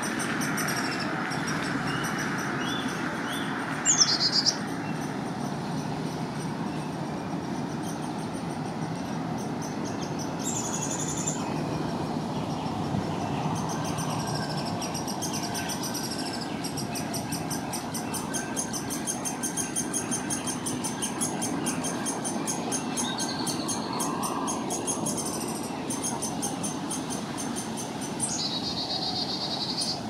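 Downy woodpecker chick begging for food from its nest hole, a rapid run of high, thin peeps kept up incessantly. About four seconds in there is a brief, louder, falling high note. A steady low background hum runs underneath.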